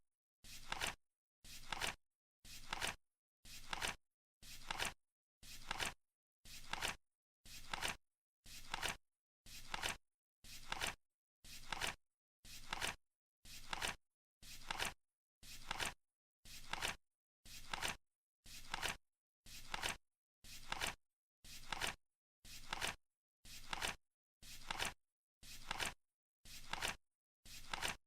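Flip clock countdown timer ticking off the seconds: a short, crisp flap of the flip card once every second, evenly spaced with silence in between.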